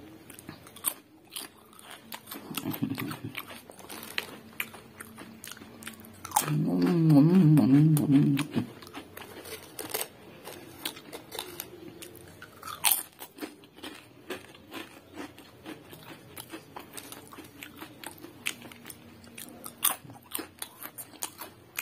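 Crunching and chewing of ridged Lay's potato chips: crisp bites and chews repeat throughout. About six seconds in, a man's voice sounds for about two seconds without words; this is the loudest moment.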